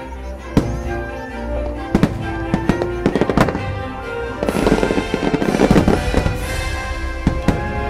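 Aerial fireworks shells bursting in sharp bangs, with a dense spell of crackling from about four and a half to six and a half seconds in, over the show's music playing from loudspeakers.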